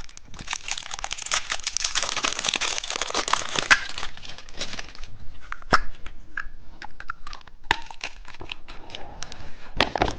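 Candy wrapper crinkling and tearing as a packaged candy is unwrapped: a dense crinkle for the first few seconds, then scattered clicks and rustles.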